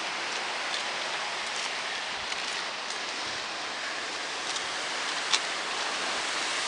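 Steady wash of ocean surf, with a few faint ticks and one sharper click about five seconds in.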